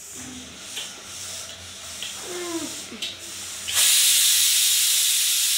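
A steady, loud hiss starts about two-thirds of the way in and holds to the end, after a brief faint vocal sound.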